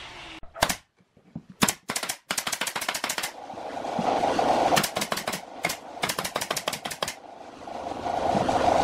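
Pneumatic nail gun firing into plywood, a couple of single shots and then quick runs of several shots a second. A steady machine hum swells underneath between the runs.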